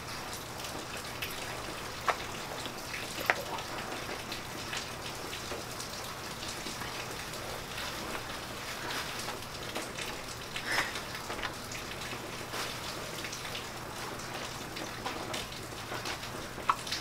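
Steady rain: an even, constant hiss, with a few faint knocks over it.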